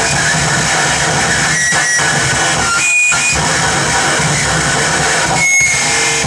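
Live harsh noise set: a loud, dense wall of distorted electronic noise, worked by hand from wired-up gear, with thin whistling feedback tones and a few short breaks in the texture.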